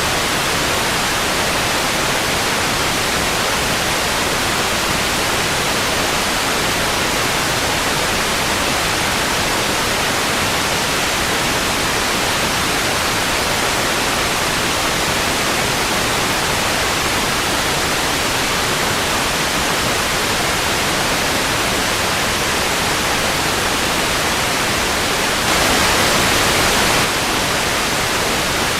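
Analogue TV static: a steady, even hiss of an untuned television, with a brief louder swell of about a second and a half near the end.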